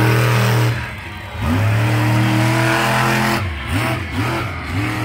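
Monster truck engine revving hard: held high at the start, dropping back about a second in, held high again for nearly two seconds, then a quick run of about four short throttle blips near the end.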